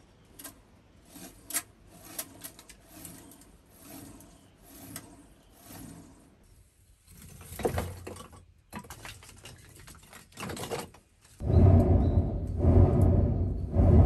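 Sticks crackling and clicking as a small fire burns. About eleven seconds in, a loud rumbling hum starts as a cord-driven clay centrifugal blower is spun up to force air into the brick furnace, swelling and easing about once a second with each pull of the cord.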